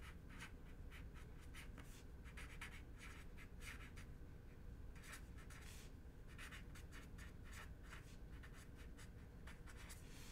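Sharpie marker writing on paper: quick, irregular pen strokes forming letters, with a pause of about a second partway through.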